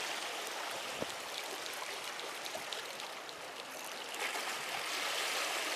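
Seawater washing and lapping against the breakwater rocks in a steady wash, with a small click about a second in.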